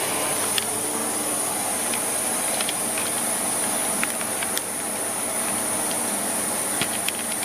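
Siemens Z6.0 Power 2500 W bagged cylinder vacuum cleaner running steadily: rushing airflow with a constant high whine. A few light clicks and knocks sound over it.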